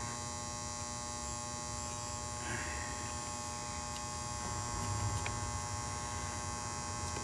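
Steady electrical hum with several steady tones layered in it, even in level throughout.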